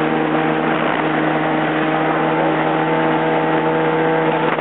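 Yamaha jet ski engine running at a steady speed, its hum held at an even pitch over a constant rushing noise.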